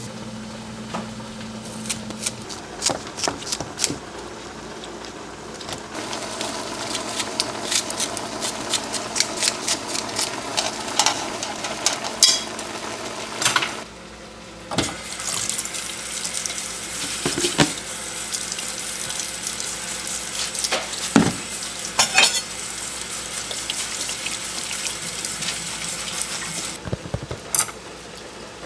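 Kitchen work: a run of sharp clinks and knocks of dishes and utensils, then a faucet running into a sink of dishes for about twelve seconds, with more clinks as dishes are moved, stopping shortly before the end.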